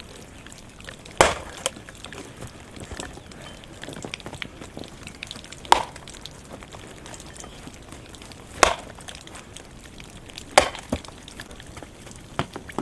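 Loud, sharp chopping blows, four of them a few seconds apart, with lighter knocks in between.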